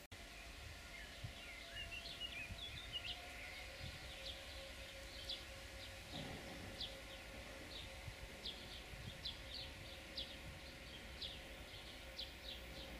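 Small birds chirping repeatedly over the faint, steady low rumble and hum of a distant class 232 diesel locomotive running, its exhaust smoking.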